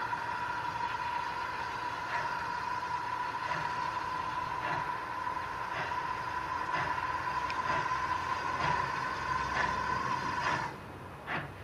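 Steam locomotive starting away: a steady loud steam hiss with faint exhaust chuffs about once a second, coming slightly quicker. The hiss cuts off near the end, leaving the chuffs alone.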